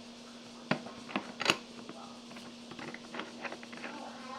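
Several sharp clicks and taps, the loudest about a second and a half in, then a run of small light ticks, over a steady low hum.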